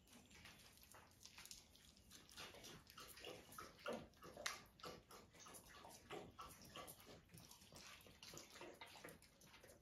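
Puppies eating soft wet food from a plate: faint wet lapping and smacking made of many small irregular clicks, busiest in the middle.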